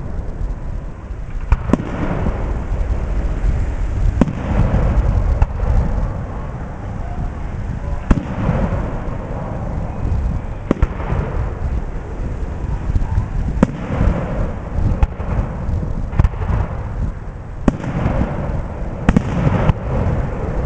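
Aerial fireworks shells bursting overhead: about nine sharp bangs at irregular intervals of one to three seconds, each trailing off in a rolling rumble and crackle.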